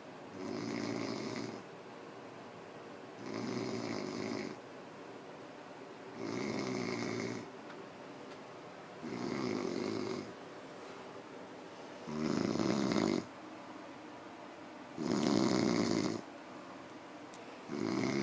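A man snoring in a drunken sleep: a rasping snore about every three seconds, each lasting a little over a second, seven in all, the last two loudest.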